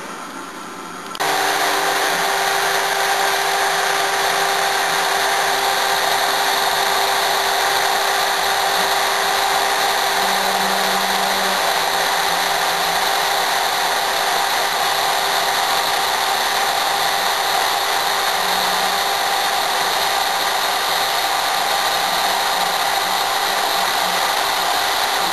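CNC router spindle coming in suddenly about a second in and running steadily with a high whine over a loud hiss, as the machine makes the outline cuts in the wood.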